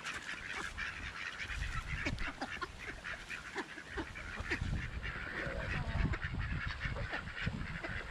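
A flock of mallards and white domestic ducks quacking and chattering over one another, many short calls overlapping without a break, as they crowd in begging for food.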